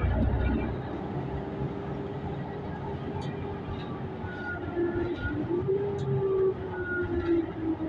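Interior of a city transit bus under way: a steady drivetrain whine that sags about five seconds in and rises again, over low road rumble. Loose fittings knock and rattle a few times.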